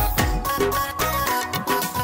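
Background music: an instrumental passage of a Punjabi song with a steady drum beat and no singing.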